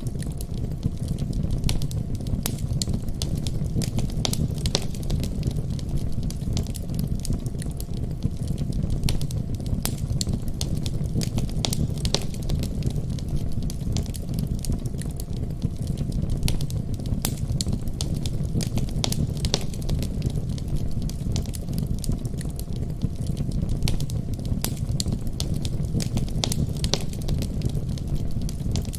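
Wood fire crackling in a fireplace: steady irregular pops and snaps over a constant low rumble of flame.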